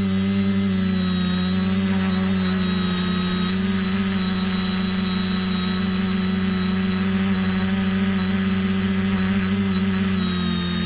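X550AIOP quadcopter's electric motors and propellers running in flight, a steady buzzing whine at an even pitch, heard close up.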